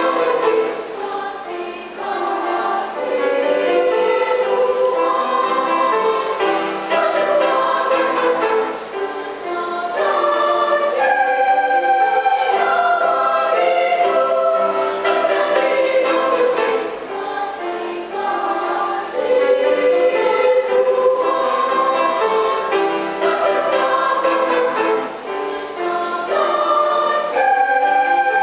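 Children's choir singing in parts, holding sustained notes with short breaks between phrases.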